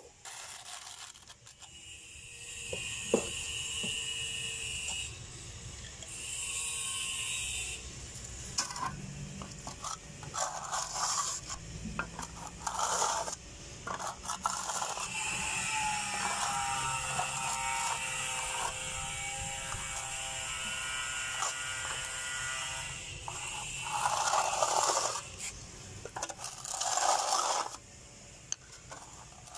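Notched steel trowel scraped against ceramic floor tiles and their edges, in repeated irregular scraping strokes. In the middle a steady tone at several pitches sounds for several seconds.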